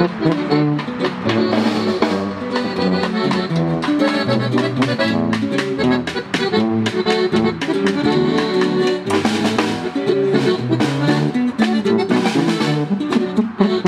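Instrumental Mexican regional band music with no singing: an accordion melody over a tuba bass line, with snare drum hits and strummed guitar.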